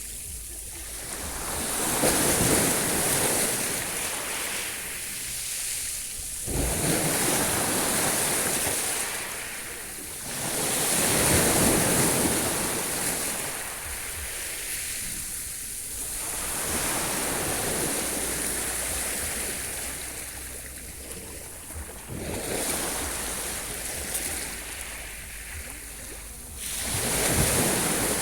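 Sea waves washing onto the shore, a surge of surf every four to five seconds that swells and then dies back.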